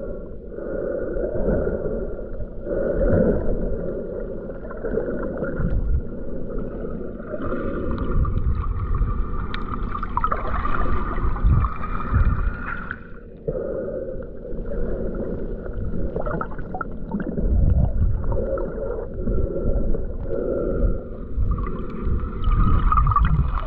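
Underwater sound picked up by a camera held submerged in shallow sea water: a muffled, continuous rumbling and gurgling of moving water, rising and falling unevenly, with a few dull knocks.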